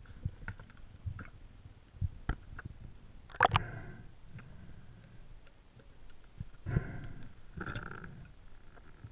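Underwater clicks and knocks as a pole spear and the perch on its paralyzer tip are handled with gloved hands. There are louder clattering knocks about three and a half seconds in and again around seven to eight seconds.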